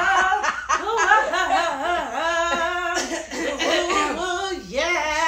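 Several people laughing together in repeated peals of laughter.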